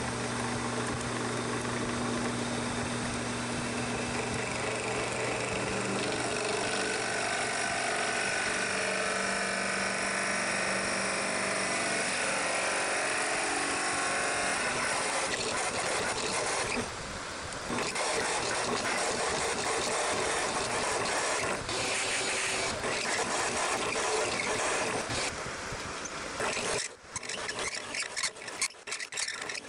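Drill press running with its bit boring a hole into a block of purpleheart wood: a steady motor hum under the rasp of cutting. The sound dips briefly partway through and turns choppy near the end.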